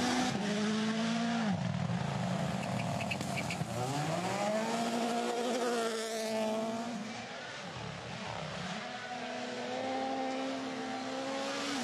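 Toyota GR Yaris Rally1 car's turbocharged 1.6-litre four-cylinder engine at full rally pace, its pitch dropping and rising through gear changes as it goes past close by about six seconds in, then holding a high steady note.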